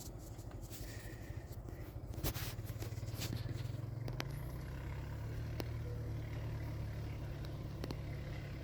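A vehicle engine running steadily, its low hum shifting slightly in pitch about four seconds in, with a few scattered sharp clicks over it.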